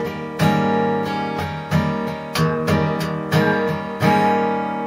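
Six-string acoustic guitar in an open tuning strumming a chord fretted like an A major on the 2nd fret, with the 6th string also stopped at the 2nd fret, while the open strings ring. It is struck about seven times in a steady rhythm and stops just before the end.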